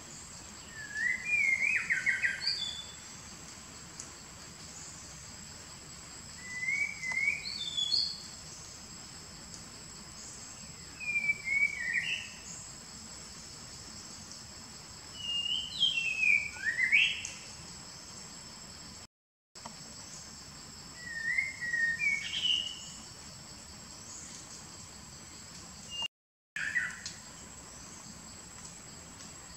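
A songbird repeating a short phrase of quick whistled, up-and-down notes about every five seconds, six times, over a steady high-pitched insect drone. The sound cuts out briefly twice.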